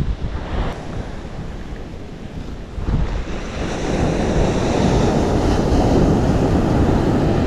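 Ocean surf breaking and washing up a sandy beach, with wind buffeting the microphone. The wash grows louder from about three seconds in as a wave breaks close by.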